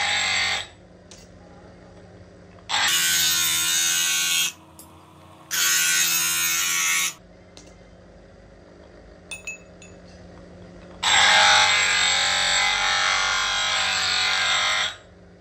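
Bench grinder: metal pressed hard against its spinning abrasive disc in four grinding spells of one to four seconds, with a low steady hum in the gaps between them. A few light clicks come about nine and a half seconds in.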